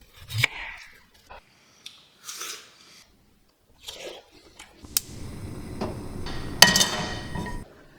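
Kitchen handling sounds: scattered knocks and short scrapes of utensils and dishes, then about two and a half seconds of steady rushing noise with a couple of sharp clinks, which stops suddenly.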